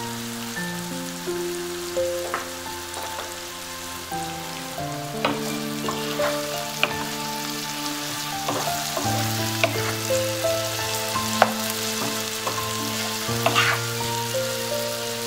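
Sliced champignon mushrooms sizzling as they fry in a non-stick pan, stirred with a wooden spatula, with a few sharp clicks of the spatula against the pan in the second half.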